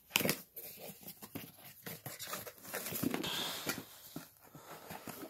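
Cardboard box being opened and handled, with packing material rustling as a turbo inlet guard is lifted out; a run of small irregular clicks, knocks and scrapes.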